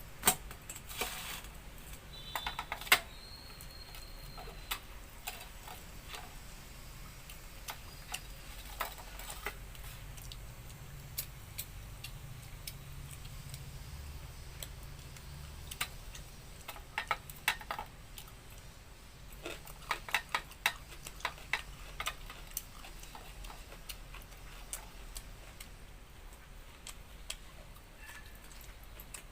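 Eating by hand: scattered small clicks, smacks and clinks of food and fingers against the dish, with a short ringing clink about two to three seconds in and a cluster of clicks about two-thirds of the way through.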